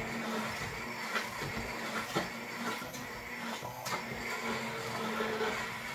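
Hand-held immersion blender running in a glass bowl of crêpe batter, its motor whirring steadily over the churning of the batter, with a few sharp clicks.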